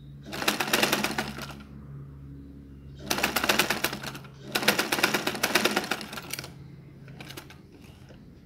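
Black domestic sewing machine stitching in three quick runs of rapid, even needle clatter, stopping and starting as the fabric is guided, then two brief short runs near the end.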